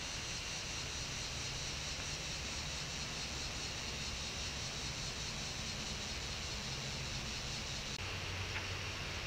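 Steady, even hiss of a trail camera's microphone in evening woodland, with a constant high-pitched band in it. The tone shifts slightly about eight seconds in, where one trail-camera clip gives way to the next.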